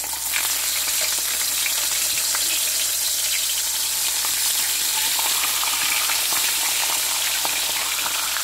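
Whole Indian mackerel frying in hot canola oil in a steel wok: a steady sizzle with many small crackling pops as the fish are laid in.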